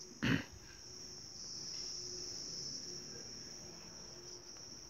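Insects chirring steadily in a continuous high-pitched drone, with a brief vocal sound from a man just after the start.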